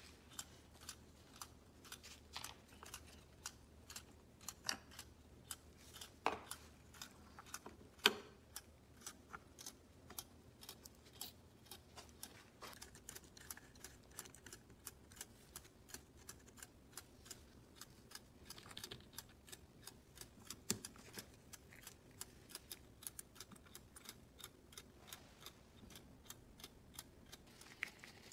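Faint, steady run of small metallic clicks and ticks, a few a second, with a few louder taps, from a vintage Duncan parking meter's mechanism being handled and taken apart by hand.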